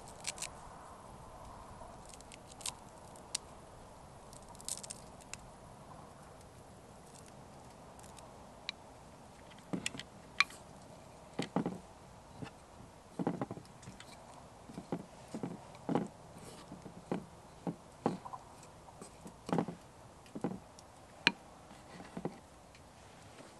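Soft taps, clicks and knocks of hands and a utensil handling food in a wooden bowl. They come only now and then at first, then one or two a second from about halfway on.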